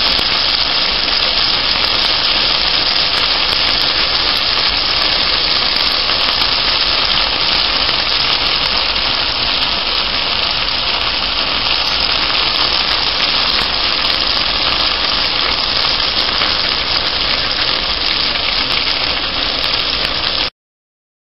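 Cornmeal griddle cakes frying in melted margarine in a skillet: a steady, dense sizzle with fine crackles throughout.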